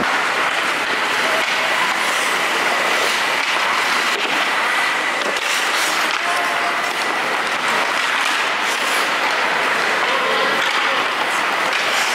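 Rink noise from a children's ice hockey game in play: skates scraping and carving the ice, a steady rushing din, and a thin steady high tone, with a few faint clicks of sticks and puck.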